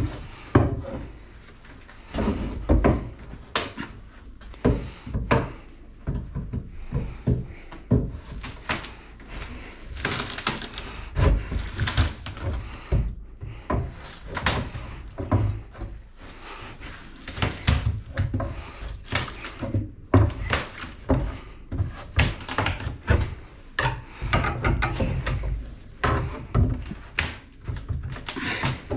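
Wall demolition: irregular wooden thuds, knocks and scraping as wall material is pulled out, with many strikes of varying loudness close together.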